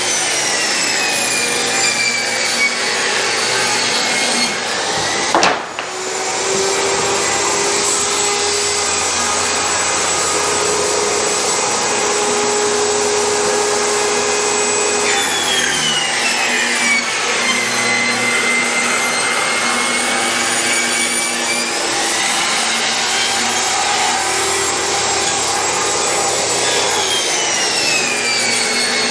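Sawing wood with a motor-driven saw running steadily. Its pitch drops and holds while under load in the cut, and rises again when it comes free, a few times over.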